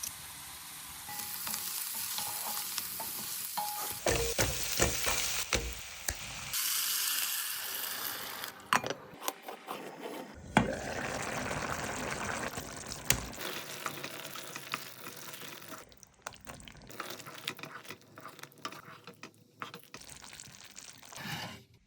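Food sizzling as it fries in a pan and being stirred, with sharp clicks and scrapes of a utensil. It comes in a string of short cuts, the sound changing abruptly every few seconds.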